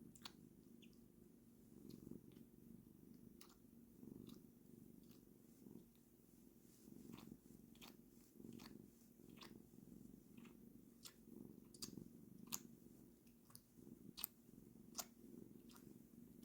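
A Munchkin cat licking its fur: faint wet tongue clicks, coming more often in the second half, over a low rumble that swells and fades about once a second.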